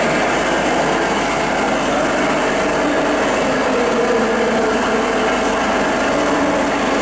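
A steady, loud engine drone running without a break and without rising or falling in pitch.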